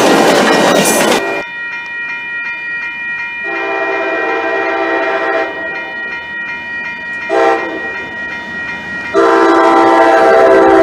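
An MBTA commuter train rushing past close by, cut off about a second and a half in. Then a grade-crossing warning bell rings steadily while an approaching train's horn sounds a long blast, a short toot, and another long, loud blast: a crossing signal.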